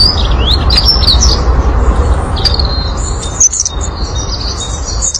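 Birds chirping and calling, with quick rising whistles in the first second and a dense run of high chirps from about two and a half seconds in, over a steady low rumble.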